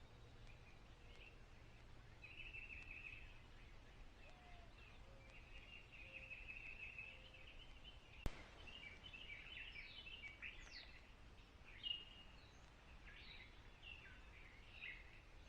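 Faint birdsong outdoors: wild birds giving repeated trills and short chirps, busier in the second half, with one sharp click a little past the middle.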